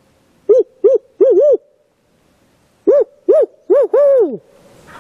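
Loud, close barred-owl hooting in two phrases of four notes, 'who cooks for you, who cooks for you-all', the last note drawn out and dropping in pitch. It is an owl hoot used as a locator call to make gobblers answer.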